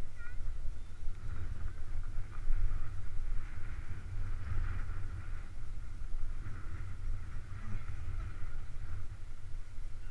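Wind buffeting the microphone of a camera moving downhill, a heavy uneven rumble, with a steady hiss of snow sliding under skis that swells and fades as the run goes on.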